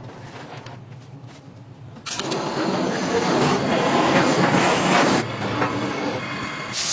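Handheld gas torch's flame hissing as it lights the gas burner of a flat-top griddle. It starts suddenly about two seconds in, is loudest for about three seconds, then eases to a lower steady noise.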